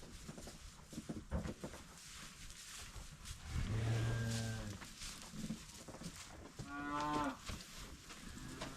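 Cattle mooing in a shelter: one long, deep moo about four seconds in, then a shorter, higher-pitched moo near the seven-second mark, with a few scattered knocks early on.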